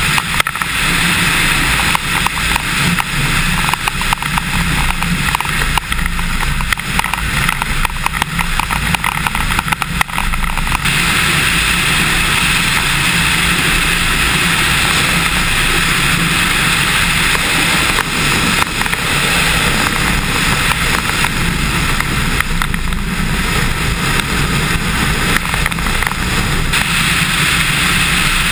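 Cessna 150's four-cylinder Continental O-200 engine and propeller running steadily, heard from outside the cabin with heavy wind buffeting on the microphone. The buffeting eases about eleven seconds in.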